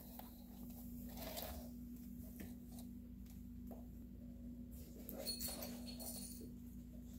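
Faint footsteps and shuffling on a wooden floor and rugs over a steady low electrical hum, with a few soft clicks and rustles near the end.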